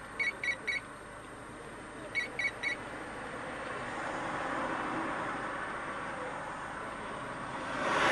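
Two quick sets of three short, high electronic beeps in the first three seconds, over steady street traffic noise that grows louder in the middle and swells sharply near the end as a vehicle passes close by.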